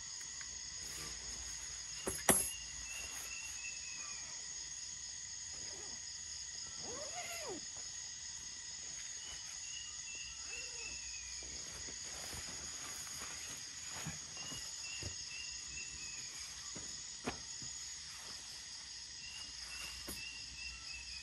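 Tropical forest ambience: a steady high insect chorus, with an animal call of quick notes falling in pitch repeated three times, about eight seconds apart. A single sharp knock sounds about two seconds in.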